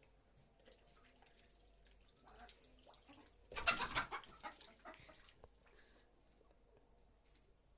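Chickens clucking softly, with short scattered clicks and a brief louder rustling flurry about three and a half seconds in.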